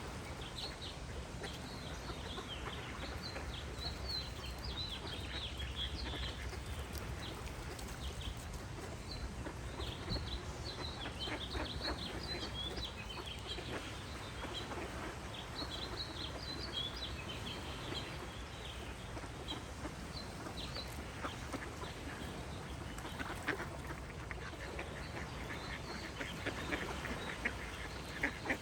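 Ducks quacking with small birds singing, high quick chirps through the first half and a denser run of calls near the end, over a steady low background rumble.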